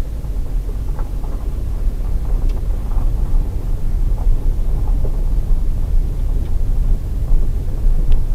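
Car driving slowly along a gravel track, heard from a dashboard camera inside the cabin: a steady low rumble of engine and tyres, with a few faint ticks.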